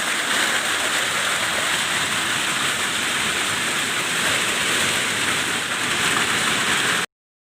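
Hail and rain pelting down in a dense, steady hiss. It cuts off suddenly near the end.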